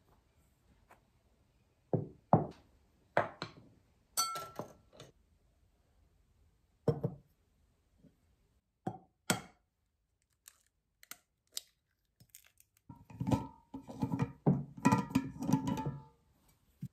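Eggs and ceramic bowls being handled: separate knocks and clinks, some ringing briefly, as an egg is cracked into a ceramic mixing bowl. Near the end comes a quicker run of knocks and ringing clinks.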